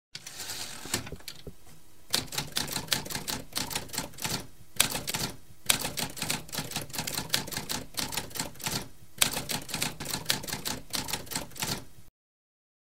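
Typewriter sound effect: rapid key clacks in runs, with short pauses between the runs, cutting off suddenly near the end.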